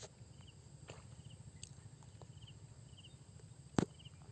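Faint background of a cricket chirping in short trills that repeat about once a second, over a low steady hum, with a few soft clicks and one sharp click a little before the end.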